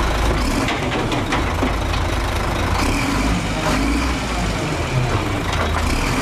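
A truck engine idling steadily, a deep even rumble with faint clatter.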